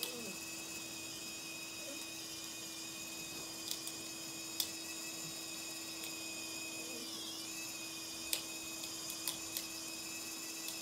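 Small electric drive motor and gearing of a model lift bridge running steadily as it raises the span: a constant hum with a thin high whine, and several sharp clicks from the mechanism spread through it.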